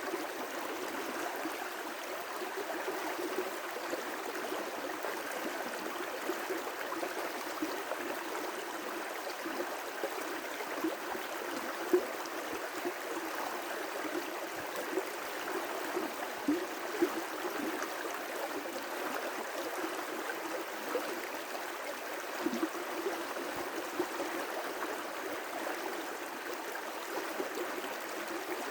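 River rapids rushing steadily, with small gurgles and splashes breaking through now and then.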